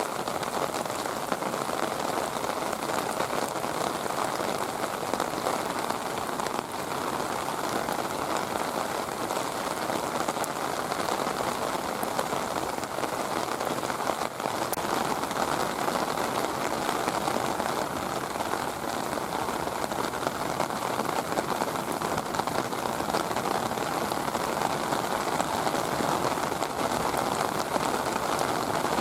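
Heavy rain falling steadily, a dense even noise with no let-up.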